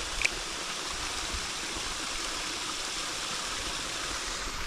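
River water running, a steady rushing noise, with one short sharp click about a quarter of a second in.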